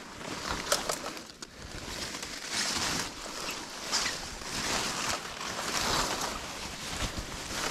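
Leaves and stems rustling and swishing as a hand pushes through and pulls at dense leafy undergrowth. The rustle comes in repeated surges, with a few sharp clicks.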